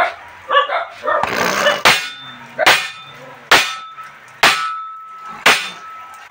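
Hammer blows on the steel rim of a 10.00-20 truck wheel, each a sharp metallic clang with a ringing tail, about one a second, six in all.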